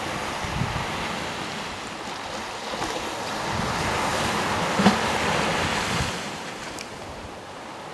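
Surf washing onto a sandy beach, a steady rush of noise that swells between about three and six seconds in, with wind buffeting the microphone in a few soft low thumps.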